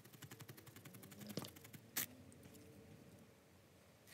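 A felting needle jabbing repeatedly through wool into a foam pad: faint, quick ticks several a second, growing sparser after about two seconds, with one sharper click about two seconds in.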